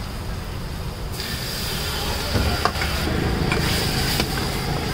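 Water poured from a steel jug into a hot kadai of frying vegetable masala, setting off a steady sizzling hiss about a second in, while a steel ladle scrapes and clinks against the pan as it is stirred.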